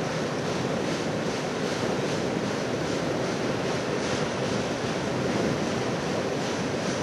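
Union Pacific coal train's cars rolling across a steel rail bridge, a steady rolling rumble with faint regular clicking from the wheels.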